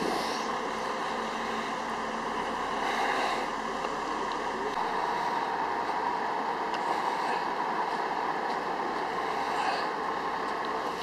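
Steady, even running noise of idling truck engines.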